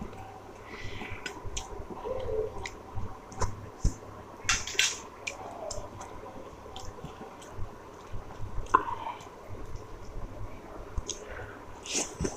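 A person eating rice and curry close to the microphone: wet chewing and squishing with scattered short clicks and a few louder smacks.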